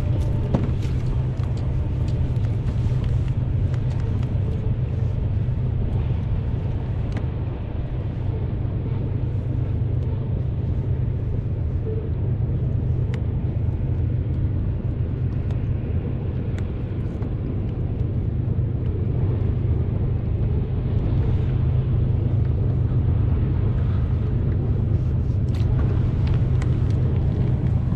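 Boat engine running steadily under way: a constant low rumble with a hiss over it.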